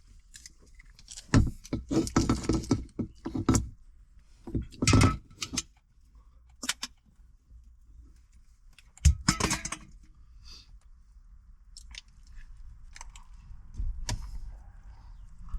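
Several bursts of close rustling and clicking, with a sharp knock about nine seconds in: things being handled and moved about.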